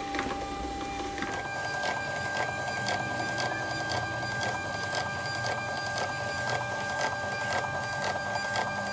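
Thermal label printer printing shipping labels, the paper feeding out: a steady motor whine that steps up in pitch about a second in, with regular ticks over it.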